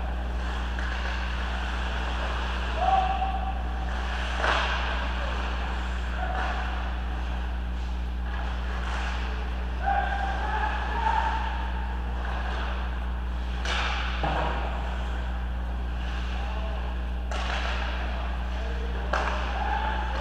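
Game sounds over a steady low hum: scattered sharp knocks and short squeaks or distant calls from play in a team game.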